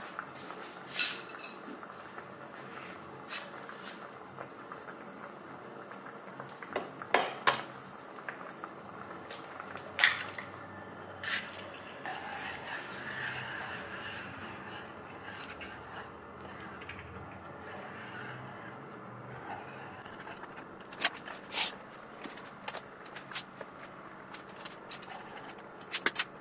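Kitchenware being handled while cooking: a dozen or so sharp clinks and knocks of utensils against dishes and a pan, with a stretch of chopsticks stirring and scraping in the pan of soup about halfway through. A steady low hiss runs underneath.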